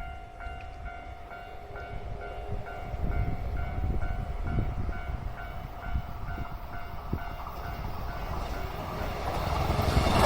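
Railway level-crossing warning bell ringing steadily, about twice a second, while an approaching train's rumble grows louder toward the end.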